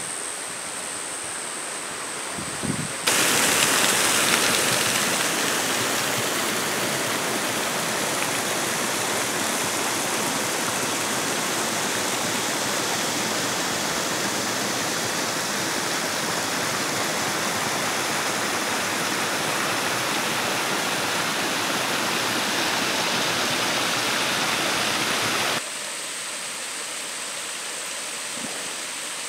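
Steady rush of falling water from a waterfall, starting abruptly about three seconds in and cutting off abruptly near the end. Before and after it, a quieter hiss with a thin, steady high whine.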